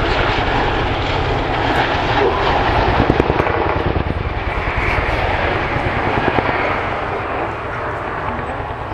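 Boeing CH-47 Chinook tandem-rotor helicopter in flight: the rapid beating of its rotor blades over the noise of its twin turbine engines, easing off a little near the end.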